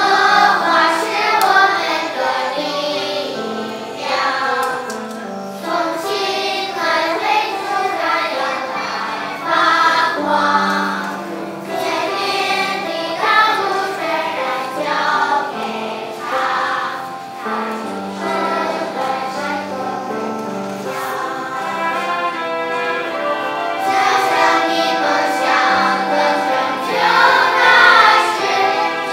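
Children's choir singing a song in a continuous melodic passage.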